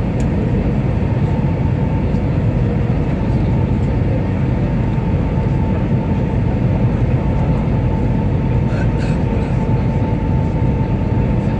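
Airliner cabin noise on approach for landing: the steady rumble of the jet engines and airflow heard from a window seat, with two faint steady tones running through it.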